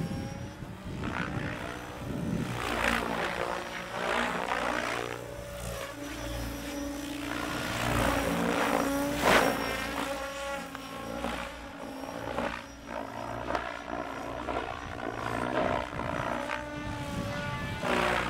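Electric Diabolo RC helicopter with Radix 710 main blades at about 1800 rpm headspeed, flying aerobatics: rotor-blade whoosh and motor whine rising and falling in pitch, again and again, as it swoops back and forth.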